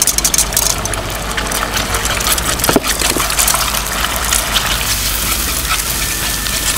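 Beaten eggs sizzling in a hot frying pan of oil and garlic, a dense steady crackle, as they are stirred with a wire whisk.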